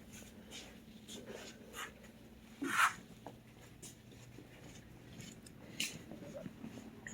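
Faint scattered clicks and rustles of handling, with one louder short scrape about three seconds in, over a low steady hum.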